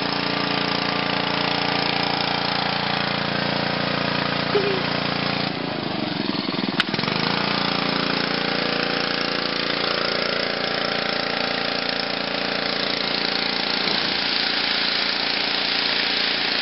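Pressure washer running steadily, its small engine humming under the hiss of the water spray from the wand. A sharp click about seven seconds in.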